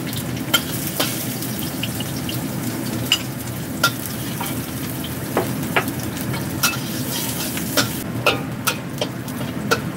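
Chopped green onion sizzling steadily in oil in a wok, fried on low heat until fragrant, while a metal ladle stirs it and clicks and scrapes against the wok every second or so.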